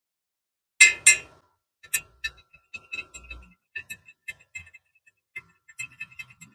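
Light metallic clicks and clinks of a stick-welding electrode being set against and moved along a welded steel joint. Two sharper clinks come about a second in, then a scatter of lighter ticks with a faint ring.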